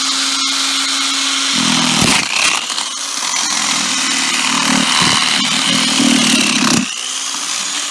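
Cordless electric drill running at full speed. About a second and a half in it bites into the remains of an electrical outlet and grinds roughly for about five seconds, then spins free again near the end.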